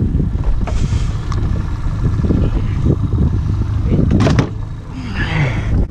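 Steady low rumble of a boat motor and wind on the microphone while the boat is under way. A sharp knock about four seconds in comes at the cooler as a fish goes in.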